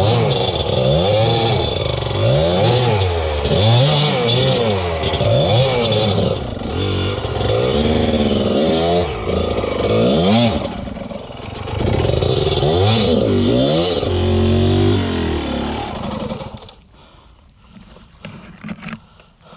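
Enduro dirt bike engine revving up and down again and again under load. About three-quarters of the way through it falls away sharply, leaving a few clicks and knocks.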